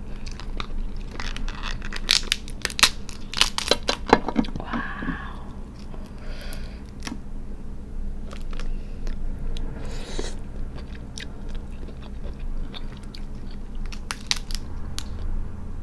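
Cooked crab shell cracking and snapping as it is pulled apart by hand, with crab meat being chewed close to the microphone. A dense run of sharp cracks comes between about one and four seconds in, with scattered snaps after.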